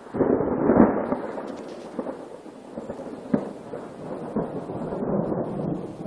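Thunder rolling: a deep rumble that sets in suddenly, is loudest in its first second, then rolls on in swells.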